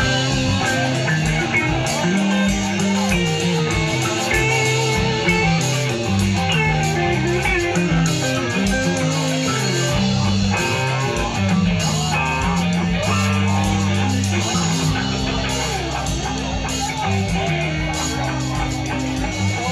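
Live band playing: two electric guitars over a bass guitar line.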